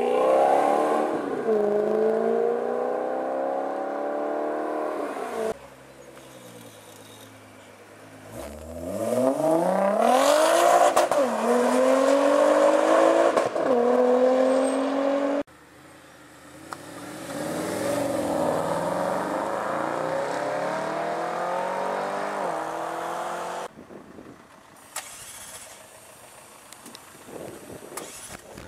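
High-revving supercar engines accelerating hard, the pitch climbing and dropping back at each upshift, in three loud edited sections that cut off abruptly. After the last cut only quieter background remains.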